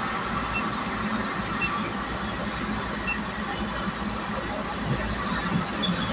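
Steady road and engine noise heard from inside a vehicle cruising on an expressway: an even rush of tyre and wind noise over a low hum and rumble.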